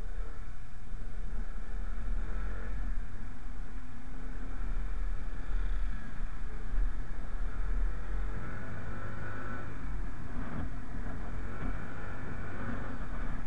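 Motorcycle under way: a steady low rumble of engine, tyres and wind, with faint engine tones that rise and fall.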